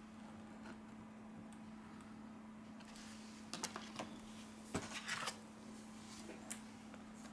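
Light clicks and taps from phone parts and small tools being handled during reassembly of a Samsung A31. The clicks come as a short cluster in the middle, over a faint steady hum.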